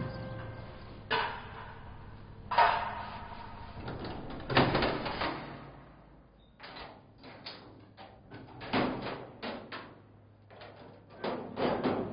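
Doors of an off-road vehicle slamming shut three times, the last the heaviest, followed by an irregular run of short, sharp knocks and clatters.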